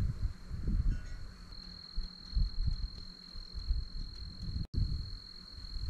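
Crickets trilling in one steady high tone over low, uneven rumbling. The sound cuts out for an instant about three-quarters of the way through.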